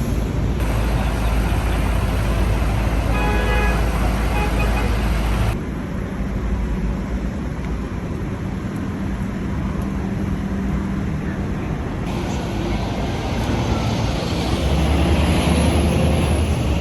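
City street traffic noise: a steady rumble of passing cars and buses, with a short high tone about three seconds in.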